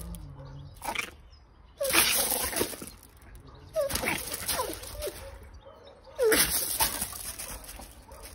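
A small dog yapping in short high-pitched bursts, three or four times about two seconds apart, each with a rush of noise.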